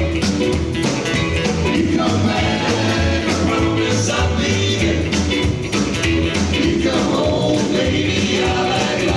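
Live rockabilly band playing a song, with bass notes and drums keeping a steady beat.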